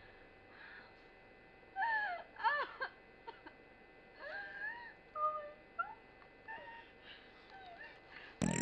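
A woman whimpering and sobbing softly: short, high, wavering cries that break off and come again. Near the end a loud sound with many falling tones cuts in suddenly.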